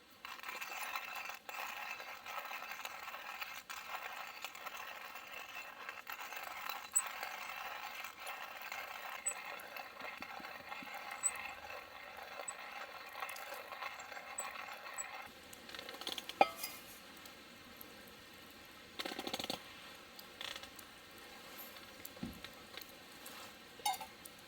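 Light clinks and taps of metal cookware and utensils over a steady hiss that stops about fifteen seconds in, with one sharp clink just after.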